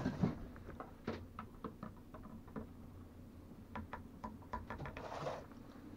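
Teaspoon stirring coffee in a ceramic mug: faint, irregular light clinks of the spoon against the mug.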